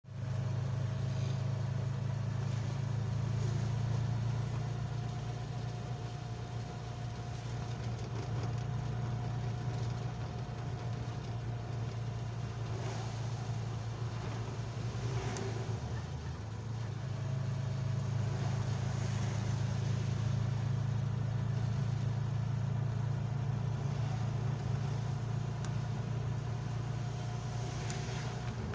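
Steady low drone of a moving vehicle's engine, heard from inside, driving along a rain-wet road, with a faint thin whine over it. The drone drops away briefly around sixteen seconds in.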